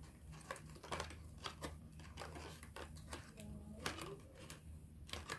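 Faint handling sounds of a selfie stick and its plastic packaging: scattered light clicks and crinkling over a steady low hum.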